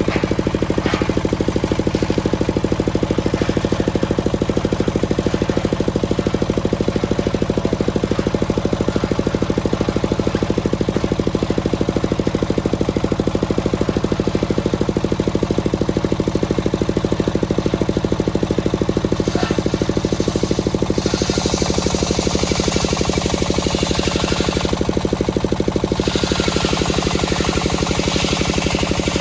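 Large circular saw blade of a homemade sawmill cutting lengthwise through a teak log, over the steady running of the engine that drives it. The hiss of the blade in the wood grows louder about two-thirds of the way through, drops back briefly, then returns near the end.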